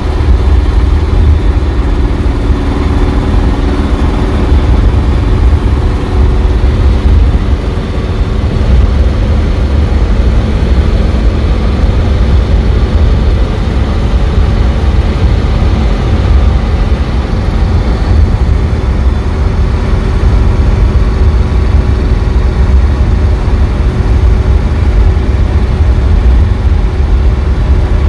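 1937 Terraplane pickup's engine running steadily at road speed, heard from inside the cab, with a heavy low rumble of road and wind noise.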